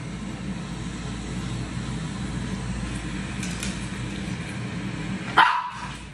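A small puppy gives one sharp, high bark about five seconds in, over a steady low hum. It is barking excitedly at a squirrel on the television screen.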